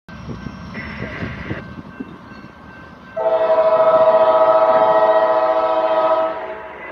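Horn of a rebuilt Norfolk Southern GE AC4400 locomotive sounding for a grade crossing: one long, steady chord blast starts about three seconds in and lasts about three seconds. Before it there is a low rumble.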